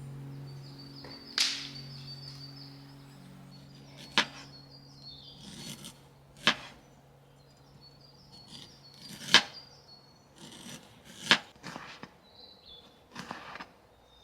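Scattered sharp knocks and clinks, about five of them a couple of seconds apart, some with a brief high ringing after. Background music fades out early on.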